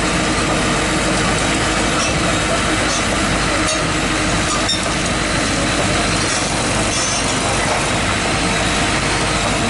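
Kobelco excavator's diesel engine running steadily, close by.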